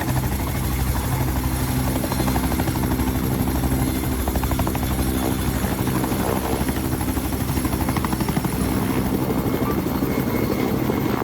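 A loud, steady engine-driven machine running with a fast, even chopping pulse.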